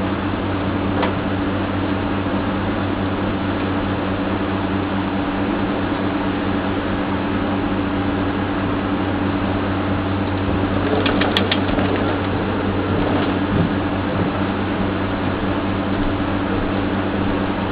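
Vacuumatic TCF friction feeder running, a steady machine hum as it feeds and counts thermal printer cleaning cards, with a brief cluster of sharp clicks about eleven seconds in.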